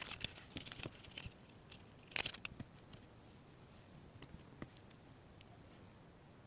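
Small clicks, taps and light rustles of tiny plastic miniature toy pieces being handled and set down. There is a flurry of them at the start, a louder flurry about two seconds in, then a few scattered taps.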